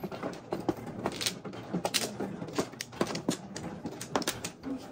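Mahjong tiles clicking irregularly as players draw, discard and set them down, a few sharp clacks each second.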